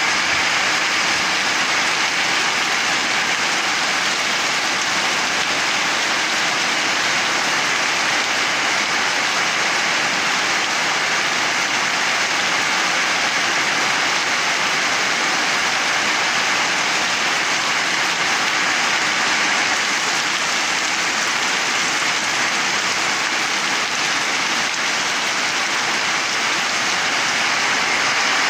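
Heavy downpour: dense rain falling steadily on a wet tiled porch, a concrete slab and tree foliage.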